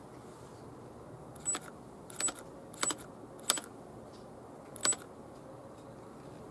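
Five short, sharp clicks at uneven intervals over about three and a half seconds, each with a brief high ring, over a low steady hiss.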